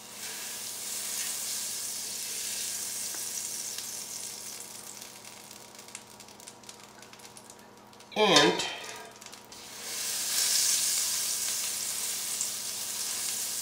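Pats of unsalted butter sizzling as they melt in a hot skillet, with a spatula stirring them. The sizzle fades over the first several seconds, then swells again about ten seconds in as another pat goes into the pan.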